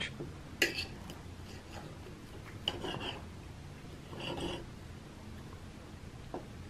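Table knife and fork scraping on a ceramic plate while cutting through a pancake: a few short, faint scrapes about a second in, around three seconds and just after four seconds, then a light click near the end.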